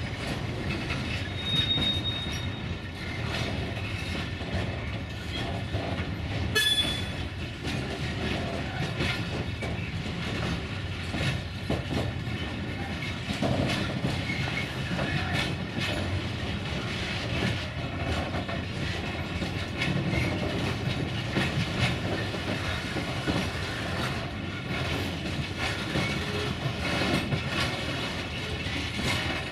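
A rake of covered grain hopper wagons rolls past close by, their wheels rumbling and clattering steadily over the rails. There is a short high wheel squeal about two seconds in and another, sharper one about seven seconds in.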